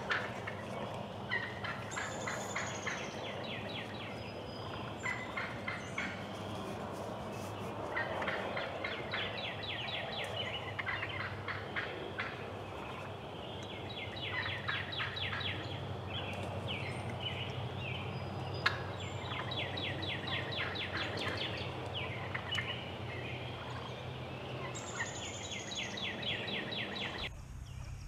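Wild turkeys gobbling again and again, a rapid rattling call every few seconds, over a steady low hum.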